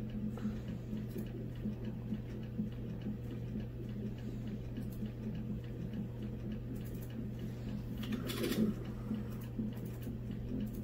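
Fetal heart monitor pulsing in a fast, even rhythm over a steady low hum, with a brief rustle about eight seconds in.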